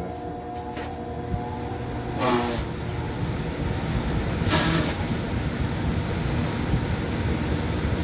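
Gas furnace burner running with a steady low rumble after a successful ignition. Two short hissing sounds come about two and four and a half seconds in.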